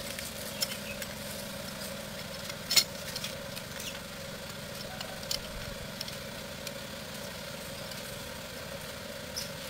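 Sparse light metal clicks and taps of a hand tool on the pinion end of a removed rack-and-pinion steering rack, with one louder click about three seconds in, over a steady mechanical hum.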